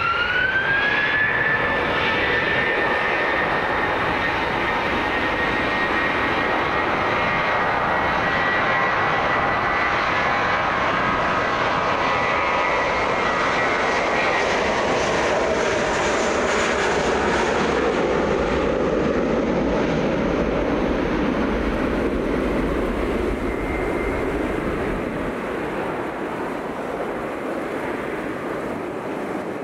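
Airliner engines spooling up with a rising whine, then running at high power with a steady high whine over a loud rush as the aircraft takes off. The sound eases off slightly near the end.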